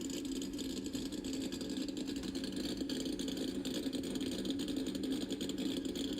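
A cammed 2003 Mustang Cobra's V8 idling steadily.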